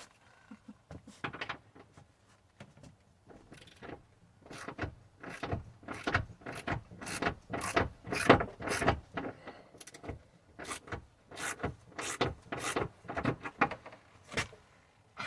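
Wrench turning a bolt in short, repeated strokes: a run of irregular mechanical clicks and rasps, sparse at first and coming thick and fast from about four seconds in.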